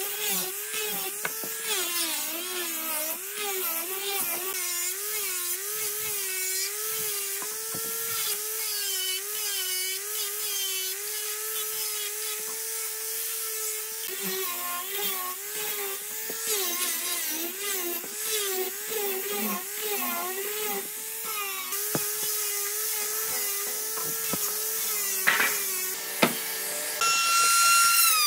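Handheld electric sanding of bent plywood strips: a sander's motor whining, its pitch wavering up and down as it is pressed into the wood. About halfway through this gives way to an angle grinder running a sanding disc. Near the end a trim router starts with a higher, louder whine.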